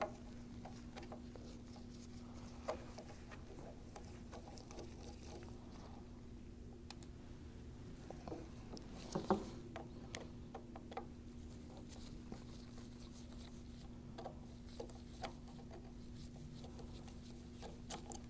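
Sporadic light clicks and taps of a screwdriver and gloved hands working at the motor end of a Graco E-10 proportioner, with one louder knock about nine seconds in, over a steady low hum.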